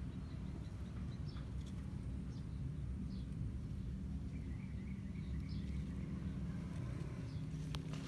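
Outdoor ambience: a steady low rumble with faint bird chirps now and then, including a short quick series of chirps around the middle.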